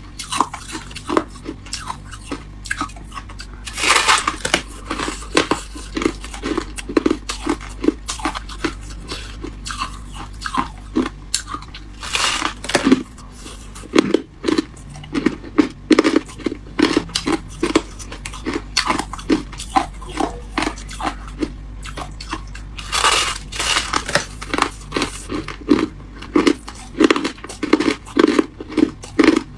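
Close-miked chewing of freezer frost: steady crisp crunching, about two chews a second, with a few louder, longer crunches along the way.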